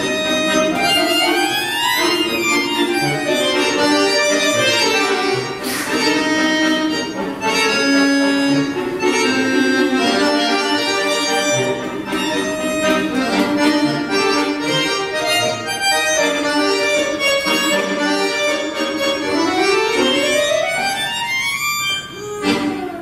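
Bayan (Russian chromatic button accordion) playing a fast waltz, full chords under quick rising and falling runs. Near the end a last rising run leads into a final chord that cuts off.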